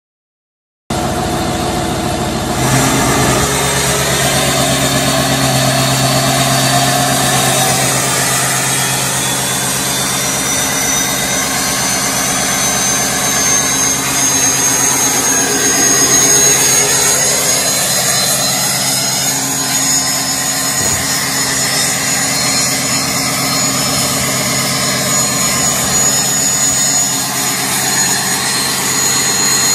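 Ford Super Duty pickup's 6.0 Powerstroke V8 turbo-diesel running steadily at idle, starting suddenly about a second in. A thin high whistle rides over it and slowly climbs in pitch.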